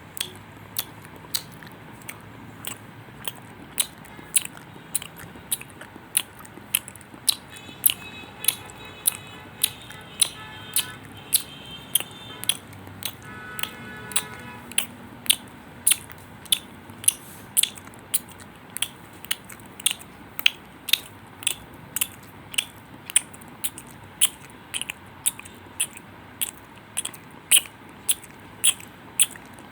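Sharp, short clicks repeating at a steady pace, about two a second. A brief tonal chime-like passage sounds for several seconds partway through.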